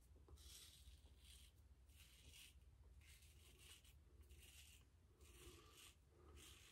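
Safety razor scraping through lathered stubble in a series of short, faint strokes, roughly one a second.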